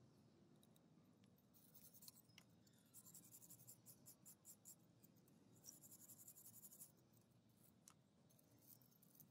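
Faint scratching strokes of a hand tool rubbing on metal, in a few short spells of quick strokes, the longest in the middle.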